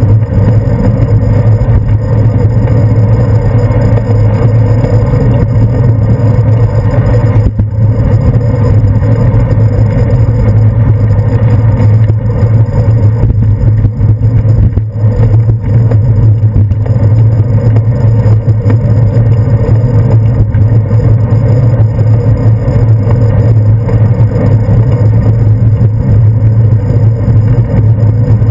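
Loud, steady rumble of wind and road vibration picked up by a handlebar-mounted GoPro Hero 2 as the bicycle rolls along on asphalt, with a deep low hum throughout.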